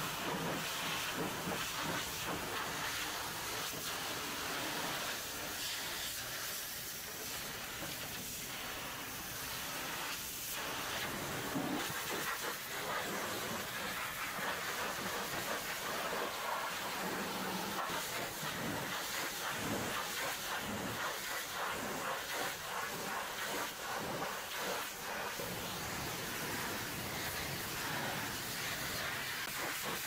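Pressure washer lance jetting water onto the steel bodywork of a concrete mixer truck, a steady hiss of spray striking the metal.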